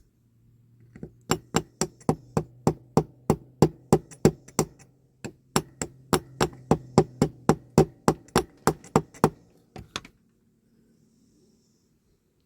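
Small hammer tapping a small metal part at about three taps a second, bending it into shape. The tapping pauses briefly about five seconds in and stops about ten seconds in.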